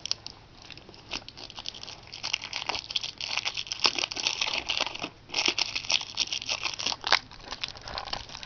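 Plastic wrapping on new batteries crinkling and crackling as it is picked at and peeled off with fingernails: a dense run of small crackles, with a brief pause about five seconds in.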